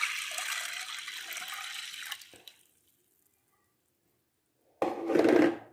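Water poured from a plastic jug into a glass bowl of dried chickpeas: a steady splashing stream that tails off about two seconds in. Near the end comes a brief loud sound.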